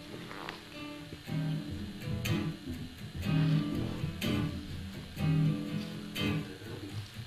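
Guitar strumming chords, about one strum a second.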